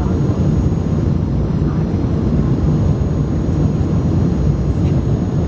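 Steady low rumble of an Airbus A300 airliner's engines and cabin noise heard from inside the passenger cabin, with a few faint steady tones above it.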